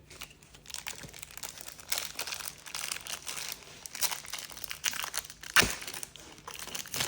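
Crinkling of a trading-card pack wrapper being handled and torn open, a busy run of crackles with one sharper, louder crackle late on.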